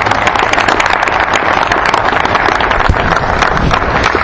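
A crowd of men applauding: dense, steady hand-clapping that keeps up throughout.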